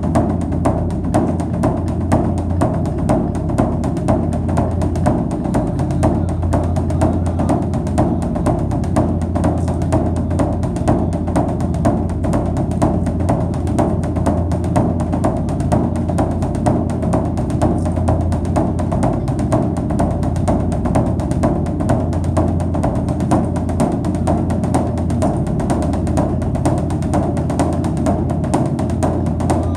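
Background music driven by steady, rapid drum percussion.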